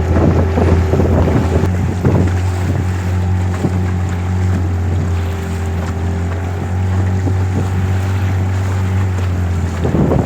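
Motorboat engine running at a steady speed, with wind buffeting the microphone.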